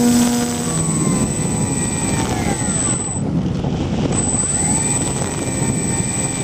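Twin electric motors and propellers of a scratch-built RC plane running with a steady whine, heard through wind rush on the onboard camera's microphone. About a second in the whine drops away and mostly wind rush remains as the plane comes down low to land.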